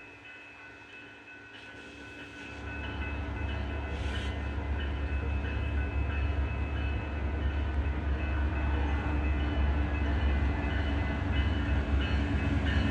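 Approaching commuter train: its diesel locomotive's low rumble builds steadily from about two and a half seconds in as it nears, with a bell ringing repeatedly throughout.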